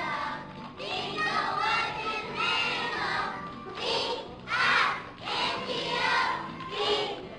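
A group of young children singing a song together, with the loudest sung phrases about halfway through.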